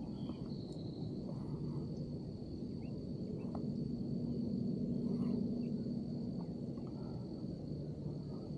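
A steady high-pitched insect trill held without a break, over low rumbling background noise, with a few faint, short bird chirps.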